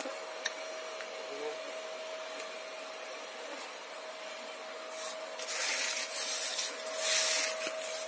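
Home-built bee vacuum running with a steady whine and hiss as its hose nozzle is worked over honeycomb to suck up honey bees. In the second half the rushing hiss grows louder twice.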